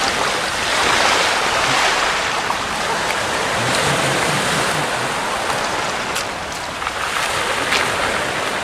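Steady rushing noise of wind on the microphone, with a few crunching footsteps on a gravel path in the second half.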